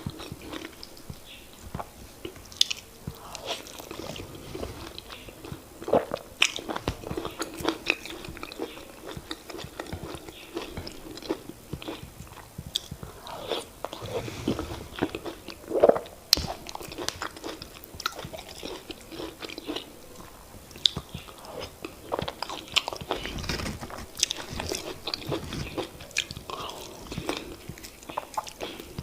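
Close-miked eating sounds of semolina fufu and oha soup being chewed: irregular wet mouth smacks and sharp clicks.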